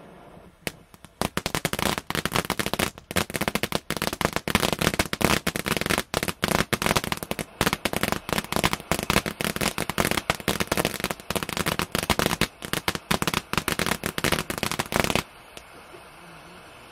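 Happy Deal Fireworks 'Season's greetings' linked ground fountain set crackling: a dense, rapid run of crackles and pops starts about a second in and cuts off suddenly near the end, leaving the softer steady hiss of the fountain.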